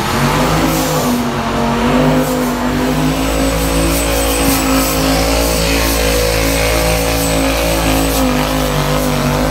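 2001 Chevy Silverado's Duramax V8 turbo-diesel running at full throttle under heavy load while dragging a pulling sled. The engine pitch climbs in the first second, then holds nearly steady with slight wavers.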